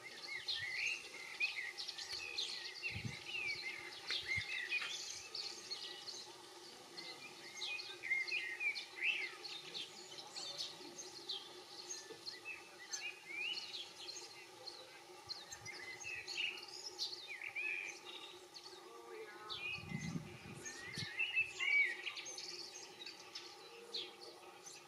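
European goldfinches twittering: quick, high chirps and trills over a steady low hum, with a dull low thump near the end.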